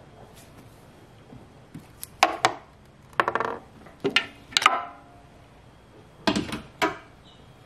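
Metal hand tools and bolts clinking and clattering: a series of sharp clinks in small clusters, each ringing briefly, from about two to seven seconds in.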